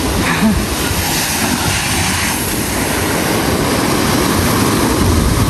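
Wind rumbling on the microphone over small waves breaking and washing up a sandy beach.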